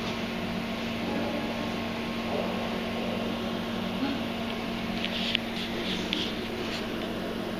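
Steady mechanical hum with a constant low drone, like a ventilation fan, and a few faint clicks from about five to seven seconds in.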